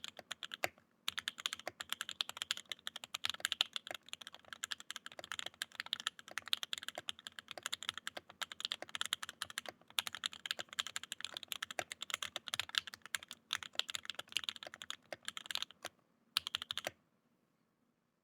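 Fast, continuous typing on a Mode Eighty mechanical keyboard with an FR4 plate and c3 Fierce Girl switches lubed with Krytox 205g0: a quick run of keystroke clacks. It pauses briefly twice, gives a last short burst, and stops about a second before the end.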